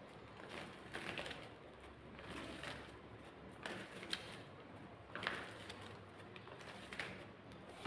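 A deck of oracle cards being shuffled by hand. Faint rustling and clicking of card edges against each other comes in short, irregular spells about every second.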